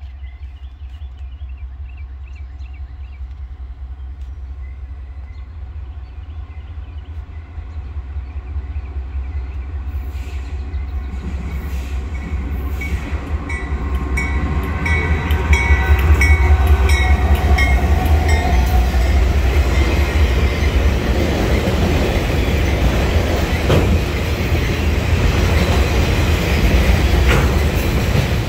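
Norfolk Southern freight train approaching and passing close by: the diesel locomotive's rumble builds steadily and peaks about halfway through as the engine goes by. Then a long string of autorack cars rolls past with a rhythmic clickety-clack of wheels over the rail joints.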